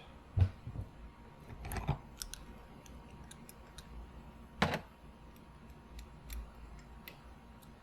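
Bench vise being tightened to press a hub into a small RC truck wheel with a socket stacked against it: scattered metal clicks and knocks, the sharpest about four and a half seconds in.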